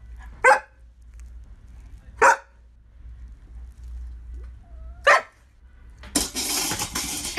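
A large husky-type dog gives three short, sharp barks, roughly two to three seconds apart. Near the end comes about a second of loud rustling noise.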